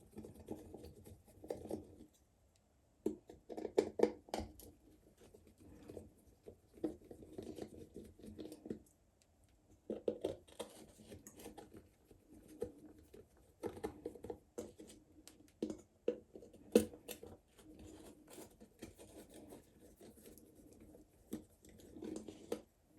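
A screwdriver turning small screws out of a plastic solar light housing: faint, intermittent scratchy clicks and rubbing of metal on plastic, in short spells with quiet gaps between them.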